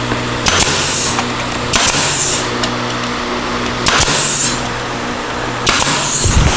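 Pneumatic staple gun firing four times into the glued MDF panels of a speaker box: each shot is a sharp snap followed by a short hiss of exhausting air. A steady low hum runs underneath.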